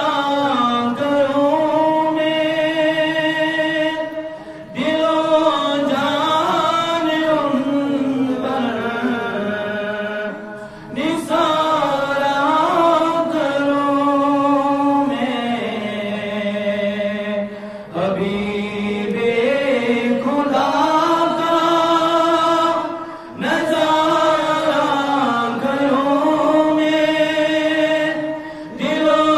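A man's solo voice chanting a naat, Urdu devotional verse, unaccompanied and amplified through a microphone. The long, drawn-out melodic phrases break briefly for breath every few seconds.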